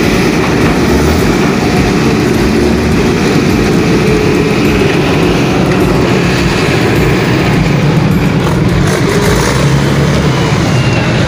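Heavy diesel machinery running close by: a loud, steady engine rumble.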